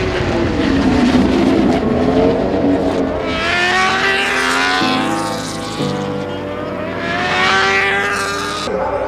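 Superbike racing motorcycles at full throttle. The engine note climbs through the revs and drops sharply at quick upshifts, several times over, with one bike's note falling and then rising again as it sweeps past early on.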